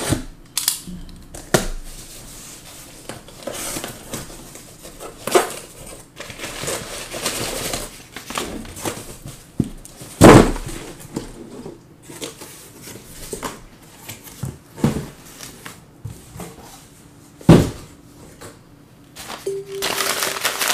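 Plastic wrapping crinkling and tearing as trading card boxes and packs are opened by hand, with scattered sharp knocks, the loudest about ten and seventeen seconds in.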